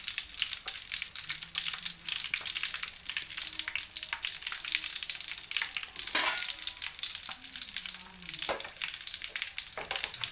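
Hot cooking oil sizzling in a wok around lumps of salt, a dense, steady crackle of small pops, with one louder pop about six seconds in.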